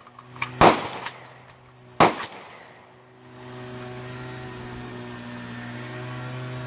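Two loud rifle shots about a second and a half apart at a shooting range, with fainter cracks around them, then from about three seconds in a steady low droning hum.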